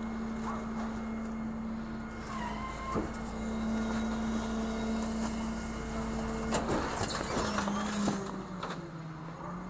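Garbage truck engine running with a steady hum that dips in pitch for a couple of seconds near the end. Plastic garbage bags rustle and crackle as they are grabbed and lifted, loudest past the middle.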